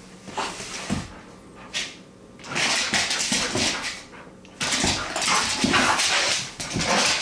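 A pet dog vocalizing excitedly in two long runs of sound, the first about two and a half seconds in and the second from about five seconds in.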